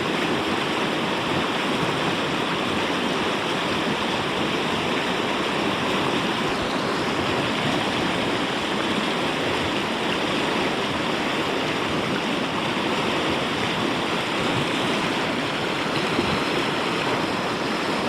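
Steady rushing of a swollen river's current, running high after typhoon rain.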